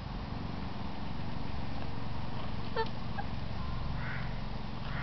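A small flock of laying hens (Black Rock, Bluebelle, Amber Star and Speckledy hybrids) giving a few short, soft clucks over a steady low rumble. One clear cluck comes about halfway through, with quieter calls near the end.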